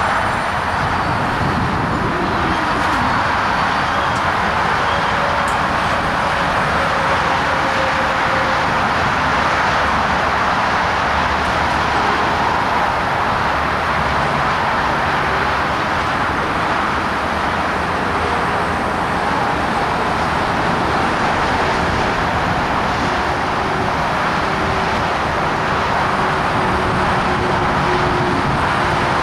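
Steady roar of road traffic from the nearby freeway. A faint steady hum comes in during the second half, from the Siemens electric train standing at the platform.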